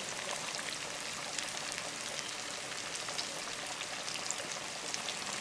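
Hot oil in a countertop deep fryer sizzling steadily, with many small crackles, around pieces of gram-flour-battered salmon as they fry.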